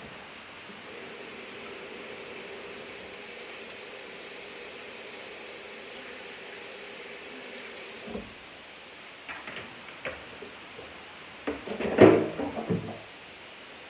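Kitchen sink faucet running for about seven seconds, a steady hiss with a faint hum, as hands are rinsed under it, then shut off. A few light clicks and knocks follow, with a louder clatter near the end.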